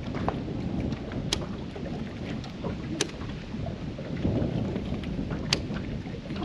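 Wind buffeting the microphone on an open boat, with water lapping at the hull, making a steady low rumble. Three sharp clicks stand out, about a second and a half to two and a half seconds apart.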